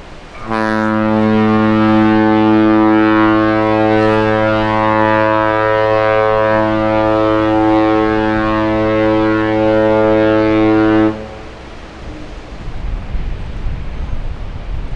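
Horn of the ultra-large container ship Ever Alot sounding one long, low, steady blast of about ten seconds, starting half a second in and cutting off sharply about eleven seconds in.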